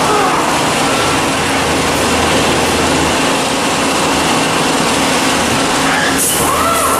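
Haas SL-20 CNC lathe running: a steady machine hum from the spindle and axis drives. A whine rises and falls near the start and rises again near the end, with a brief hiss about six seconds in.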